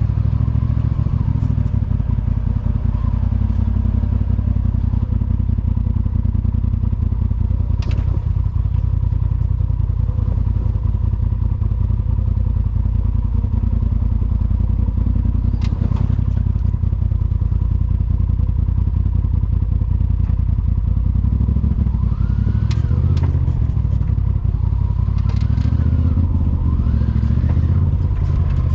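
Polaris RZR side-by-side engine running steadily while driving on a trail, with a few sharp knocks and clatter from the machine, most of them near the end.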